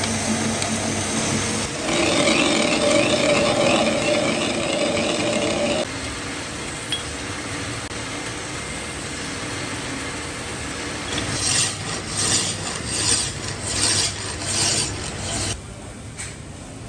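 Metal lathe running while a workpiece is machined, a steady grinding and rasping noise that gets louder about two seconds in. Near the end it turns into a run of about six rasping strokes, a little more than one a second, before it drops away.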